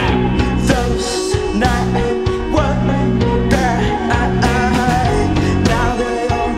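Rock band playing live: electric guitar over bass and drums, with a steady run of drum and cymbal hits.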